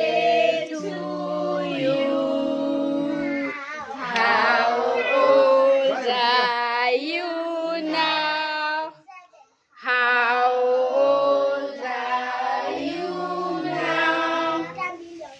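A group of children's and adults' voices singing a birthday song together, breaking off briefly about nine seconds in and then starting up again.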